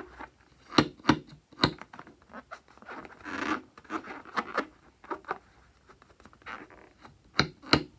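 Fingernails scratching and tapping on a rubber balloon as it is handled: a few short sharp scratches, with a longer rubbing scrape in the middle.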